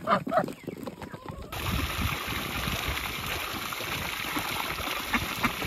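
Water pouring from a garden hose into a plastic basin, a steady splashing that starts abruptly about a second and a half in. Before it, a few short pecks and calls from ducks and chickens at the feed.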